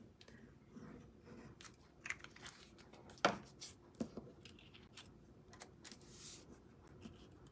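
Faint handling of cardstock and paper panels being put together on a work surface: scattered light taps and rustles, the sharpest tap about three seconds in, with a brief swish of paper late on.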